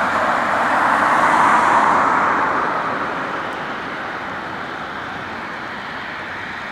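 Boeing 737-800's CFM56 jet engines sounding as the airliner slows along the runway after landing: a broad, even rush of engine noise that is loudest about a second and a half in, then falls away to a quieter steady level.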